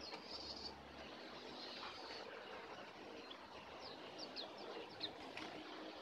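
White-eyes giving short, high chirps, with a quick run of brief notes about four seconds in.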